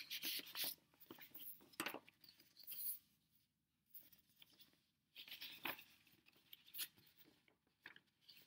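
Paper rustling and crinkling as a paper envelope is handled and a folded receipt is taken out and opened: short scattered rustles, a near-silent gap of about two seconds in the middle, then more rustling.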